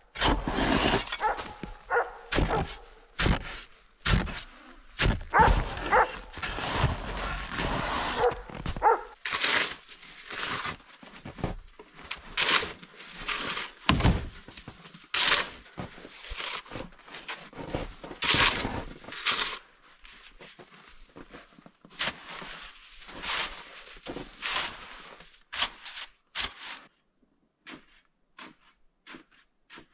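Snow shovel cutting into, scraping and scooping packed, deep snow, with irregular crunching strokes and thuds as blocks are lifted and thrown. The strokes come thick and fast, then thin out and fade near the end.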